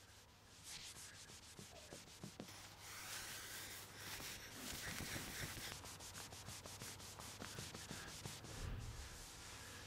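Repeated scrubbing strokes of a hand rubbing across a tiled floor, faint and irregular, growing busier a few seconds in.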